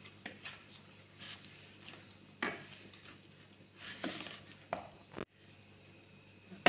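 Hand kneading a soft, oiled maida dough in a plastic bowl: a few short, irregular squelches and pats, a second or two apart, with quiet between them.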